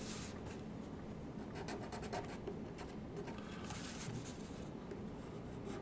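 Marker tip scratching across drawing paper in a few short strokes with pauses between them.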